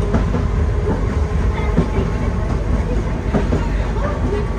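Nagasaki Electric Tramway streetcar running along its track: a steady low rumble of wheels on the rails, with scattered clicks and knocks.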